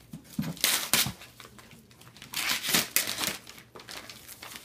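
Christmas wrapping paper being ripped off a boxed present, torn in quick pulls with crinkling in between, in two spells: about a second in and again around the middle.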